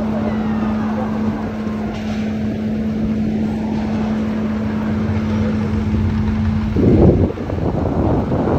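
Shafer Queen tour boat's engine running with a steady hum and low rumble, with wind on the microphone. About seven seconds in a louder gust of wind hits, and the hum is no longer heard.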